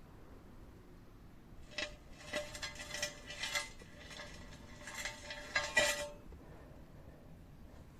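Steel pieces clinking and scraping against each other for about four seconds, the struck metal ringing with a steady tone.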